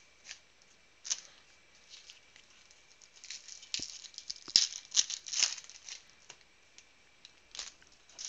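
Foil trading-card pack wrappers crinkling and tearing as packs are handled and torn open, in short crackly bursts that come thickest in the middle, with a couple of light taps.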